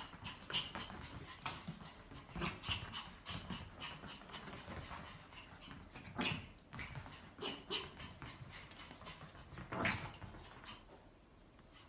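A Pomeranian's short, irregular play noises and scuffles as it tussles with a kitten, with the loudest about six and ten seconds in.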